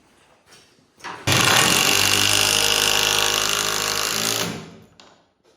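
Power drill/driver driving a screw into wood framing: a brief blip about a second in, then the tool runs steadily for about three seconds and winds down near the end.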